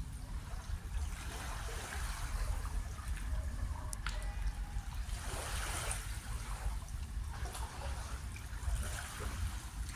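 Small waves lapping and trickling against the hull of a moored boat, coming and going unevenly over a steady low rumble.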